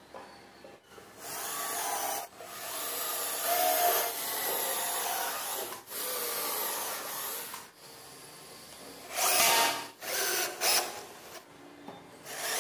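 Cordless drill boring holes into a wooden board, running in several bursts of one to three seconds each, with shorter bursts near the end.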